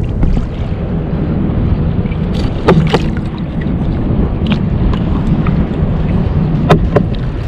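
Sea water sloshing and gurgling around a hand holding a small halibut at the surface beside a kayak, over a steady rumble of wind on the microphone, with sharp splashes about three seconds in and again near the end.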